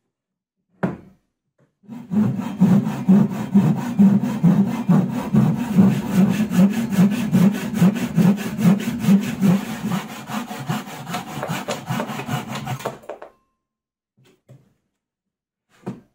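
Hand saw cutting through plywood clamped in a vise: steady back-and-forth strokes, about three a second, for about eleven seconds, getting lighter toward the end. A single sharp knock comes about a second in, and two light knocks near the end.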